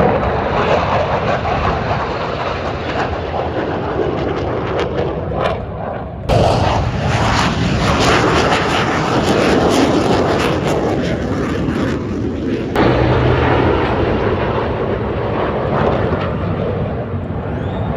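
Loud jet aircraft engine noise at an air show, a steady rushing roar with a crackling edge. It changes abruptly about six seconds in and again about thirteen seconds in.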